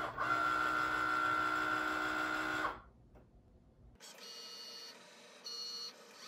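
Cricut Maker cutting machine working through a fabric cut with its rotary blade. Its motors run with a steady whine that stops suddenly about two and a half seconds in. After a short pause come fainter, shorter whirring moves.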